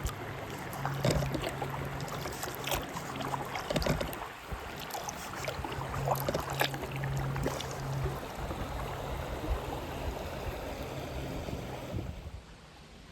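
River water splashing and trickling around a small boat drifting downstream, with many small sharp splashes. Wind buffets the microphone now and then, and the level drops near the end.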